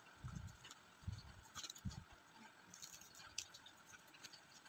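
Faint handling of glossy printed cards on a wooden table, with three soft low bumps in the first two seconds and scattered light ticks and rustles of card, over a steady faint hiss.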